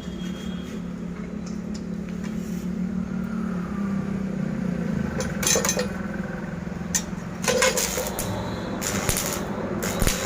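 Scattered metallic clinks and knocks of metal being handled or struck, over a steady low hum.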